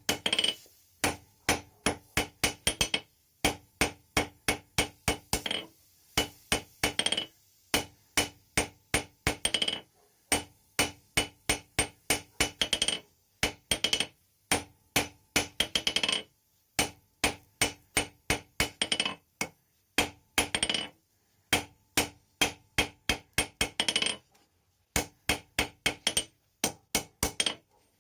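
Hand hammer striking hot steel on an anvil in runs of quick blows, about three to four a second, with short pauses between runs; each strike rings.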